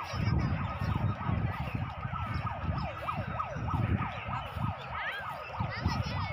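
A siren in a fast yelp, its pitch rising and falling about three times a second, over a low rumble.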